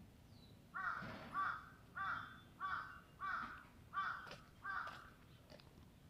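A crow cawing seven times in a steady series, about one caw every two-thirds of a second.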